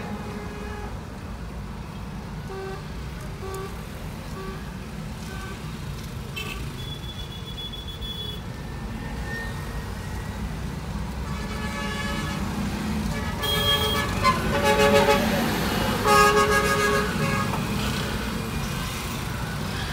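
Heavy street traffic heard from inside a car: a steady low engine and road rumble, with vehicle horns tooting. A quick run of short beeps comes a few seconds in, and louder overlapping honks come in the back half, loudest about 15 and 16 seconds in.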